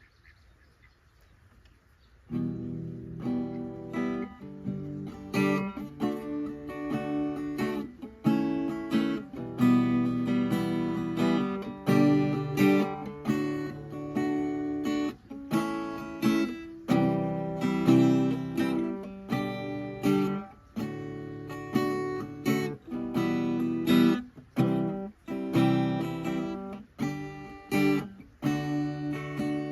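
Acoustic guitar strummed in chords, a song starting about two seconds in with a steady rhythm of strokes.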